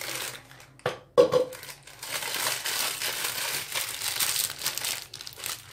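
A plastic piping bag filled with cream crinkles and rustles as it is handled. There is a short, loud sound about a second in.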